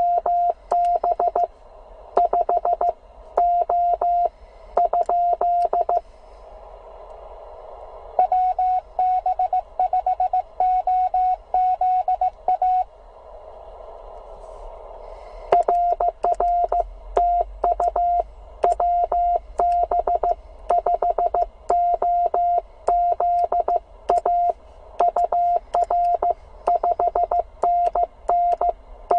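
Morse code (CW) from a Penntek TR45L transceiver: a single steady tone keyed in quick dits and dahs, in three runs with short pauses of receiver hiss between them. Sharp clicks come with many of the elements.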